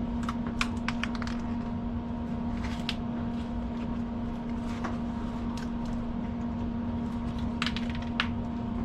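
A steady electrical hum with a constant pitch, broken by a few short sharp clicks and taps: a cluster in the first second, one near three seconds in, and two near the end. No welding arc is running.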